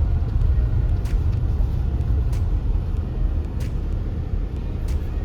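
Road noise inside a moving car: a steady low rumble of engine and tyres, with faint ticks repeating about every second and a quarter.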